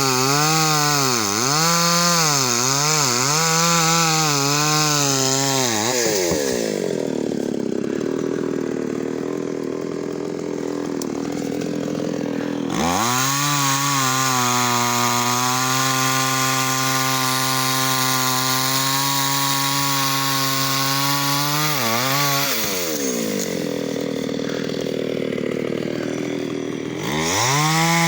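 Two-stroke chainsaw cutting wood. The engine pitch wavers under load for about six seconds, drops back to idle, then holds a steady high speed for about nine seconds before idling again. It revs up once more near the end.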